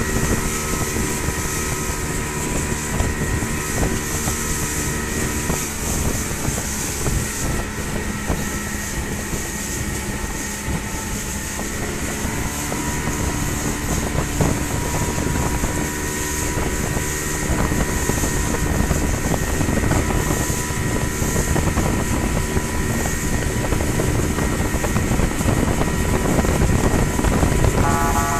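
Speedboat engine running steadily at cruising speed, with wind buffeting the microphone and water rushing past the hull. Near the end a steady tone with several pitches starts up.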